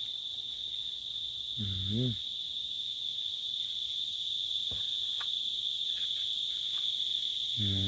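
Insects chirring outdoors: a steady high-pitched drone that never lets up. A few faint ticks and a short voiced sound about two seconds in.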